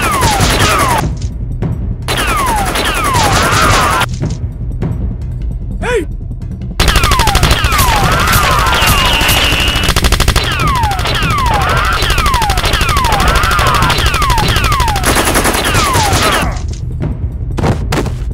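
Rapid automatic gunfire sound effects in bursts, the longest running from about seven seconds in to near the end, with many whistling bullet sounds that fall in pitch.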